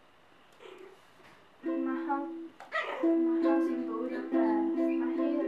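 Instrumental music, a melody of sustained notes, starts about one and a half seconds in after a quiet room tone.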